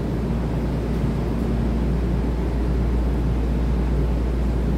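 Taiwan Railway EMU3000 electric multiple-unit train alongside the platform: a steady low hum under a broad rushing noise that grows slightly louder.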